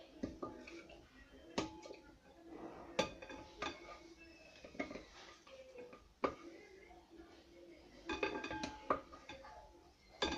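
A metal fork stirring a marinade in a glass bowl, clinking irregularly against the glass with short ringing chinks, which come thickest near the end.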